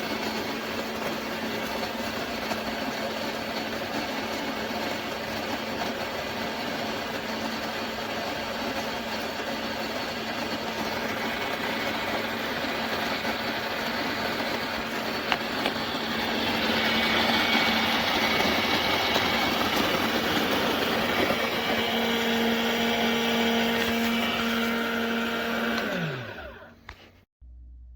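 Fellow Opus electric conical burr coffee grinder running, its motor humming steadily while it grinds. The sound grows louder and brighter about two-thirds of the way through. Near the end the motor winds down in pitch and stops.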